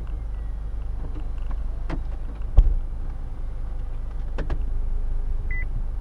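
2016 Buick Cascada's power soft top closing: the motorised mechanism running, with clicks, a louder thump about two and a half seconds in, and a short beep near the end.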